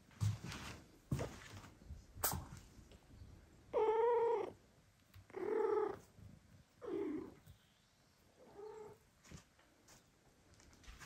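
A cat meowing four times, about one call every one and a half seconds, the first the longest and loudest and the last fainter. A few sharp taps come in the first couple of seconds.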